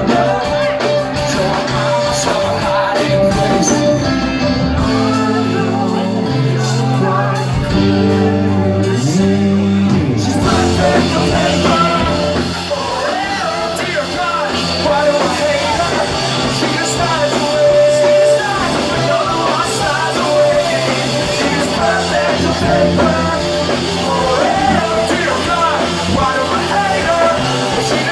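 Live rock band playing a song, with singing. About four seconds in the music thins to held low chords with the high end gone, and the full band comes back in about ten seconds in.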